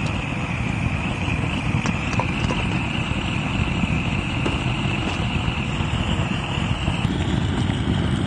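Handheld butane gas torch running steadily, its flame blowing into a campfire. The sound changes about seven seconds in.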